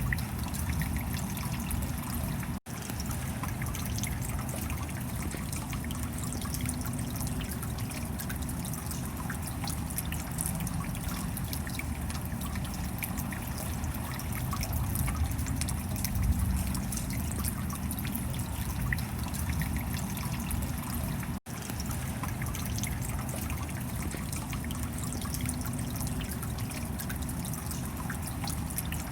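Steady rain falling, with water trickling and dripping. The sound cuts out for an instant twice.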